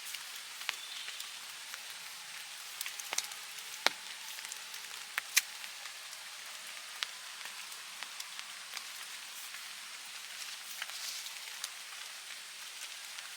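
Rain and water dripping in a forest: a steady hiss of drops with scattered louder single drops landing, the sharpest about four and five seconds in.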